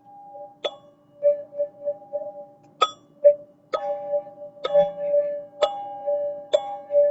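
Teal ZenTube chime struck about six times at irregular intervals of roughly a second. Each strike rings out into sustained, overlapping bell-like tones with a slow wavering pulse.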